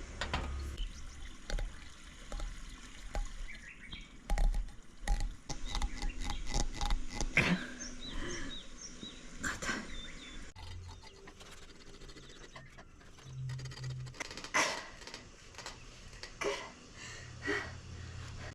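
A scattered run of small clicks, knocks and light clinks, with a few short high squeaks about six seconds in.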